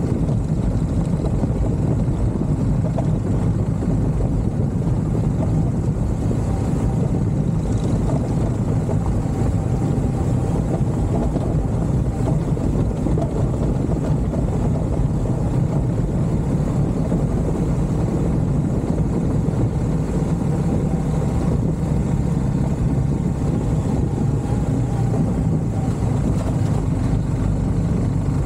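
A vehicle engine running steadily with a low rumble that holds the same level throughout.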